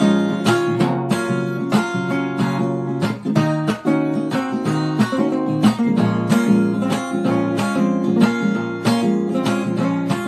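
Instrumental acoustic guitar music, plucked and strummed notes in a quick, steady stream.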